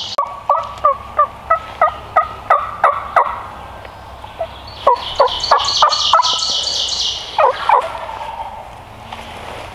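Turkey calling: a run of about ten evenly spaced notes, roughly three a second, then after a short pause a second, faster run of notes with a scratchy high edge, and two last notes near the end.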